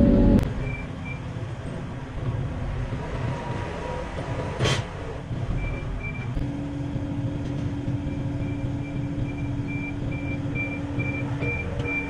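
Hidromek 140LC tracked excavator running steadily as it turns. There is one sharp knock partway through, and a steady hum joins about halfway. A high electronic beeper comes in briefly twice, then beeps about twice a second near the end.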